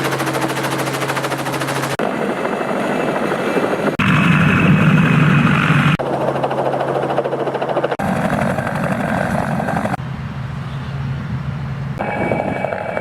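Helicopter running, its rotor chop and engine sound changing abruptly every couple of seconds as short clips follow one another.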